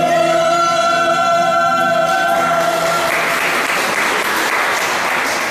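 Mixed vocal group with acoustic guitars holding a long final chord that ends about two to three seconds in, followed by audience applause.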